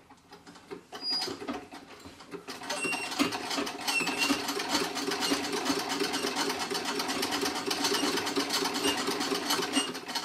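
Antique Singer 27 treadle sewing machine stitching, picking up to a fast, even run of strokes about two seconds in and stopping right at the end. Short high squeaks come through now and then: the machine has developed a squeak that needs sorting.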